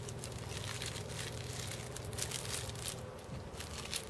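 Plastic film wrapper of an onigiri (seaweed-wrapped rice ball) crinkling and crackling irregularly as it is peeled open by hand.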